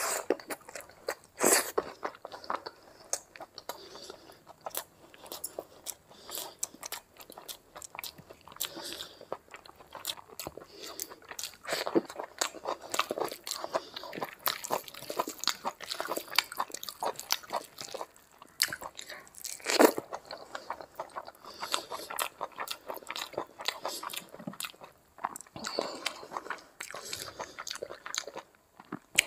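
A person eating curry and rice by hand close to the microphone: chewing and biting with wet mouth clicks and smacks. Two bites stand out as louder, one about a second and a half in and one about twenty seconds in.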